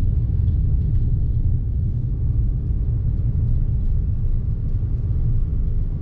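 Car driving along a narrow road, heard from inside the cabin: a steady low rumble of engine and tyres.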